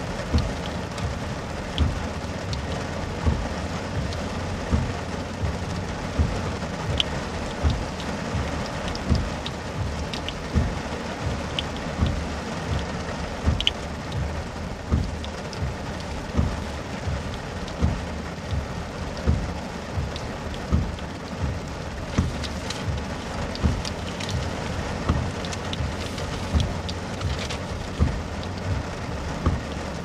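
Heavy rain pattering on a car's windshield and roof, with the windshield wipers thumping about every second and a half.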